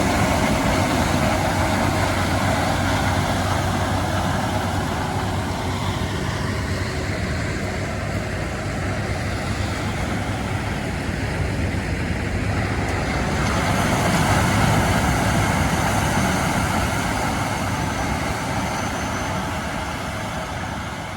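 John Deere X9 1000 combine with its 13.6-litre diesel running under load while harvesting corn: a steady, heavy engine and machinery drone. It grows louder about two-thirds of the way through and fades at the end.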